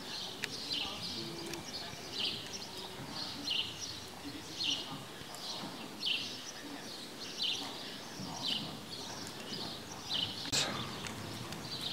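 Horse trotting under saddle on sand arena footing: soft rhythmic hoofbeats, with a short high sound recurring about once a second and a sharper click near the end.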